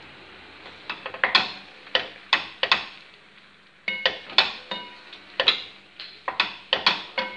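A utensil stirring penne in a frying pan, knocking against the pan in irregular sharp clicks, a few a second, some ringing briefly, with a short pause near the middle.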